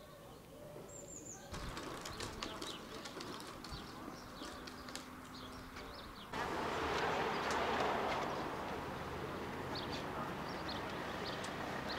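Small birds chirping in many short, high calls over a quiet outdoor background. About six seconds in, the sound cuts to a louder, steady rushing noise, with the birds still chirping over it.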